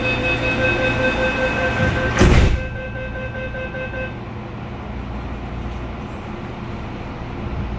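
Train door-closing warning beeping rapidly while the sliding doors of an MTR CAF train shut, with a loud thud as they close about two seconds in. The beeping stops about four seconds in, leaving the steady low hum of the train's interior.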